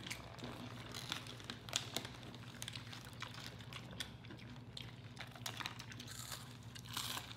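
Crunchy tortilla chips being picked off a plate of nachos and chewed: faint, irregular crisp crackles and clicks.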